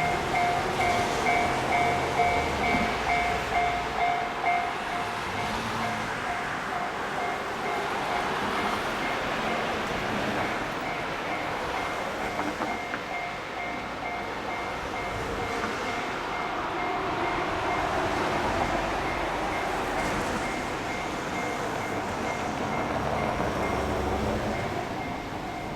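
Level-crossing warning bell ringing in rapid repeating dings while a 381 series electric train passes over the crossing, its wheels on the rails making a long, steady rush that swells and fades.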